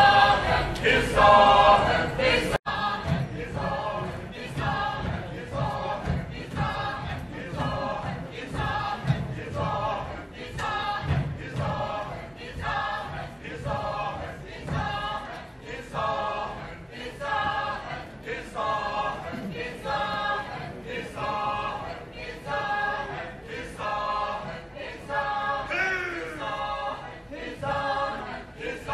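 A choir singing together, the sung notes coming about once a second, with a sudden break and drop in loudness a little over two seconds in.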